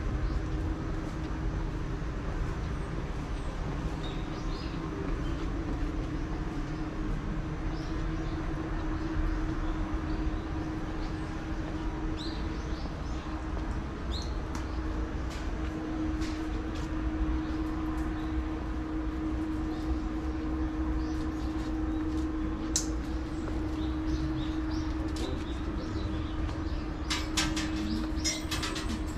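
Outdoor city park ambience: a steady low rumble of distant traffic with a constant hum, small clicks of footsteps on stone and a few bird chirps. Near the end comes a brief rapid rattle.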